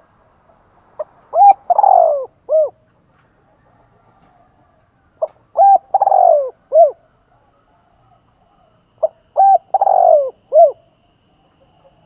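Spotted dove cooing: three phrases about four seconds apart, each a few short coos around one longer, falling coo. It is the song of a decoy bird used to provoke other doves into calling.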